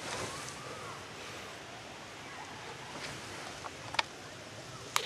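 Soft steady woodland ambience like wind in the trees, with a few small sharp clicks, the sharpest about four seconds in and another right at the end.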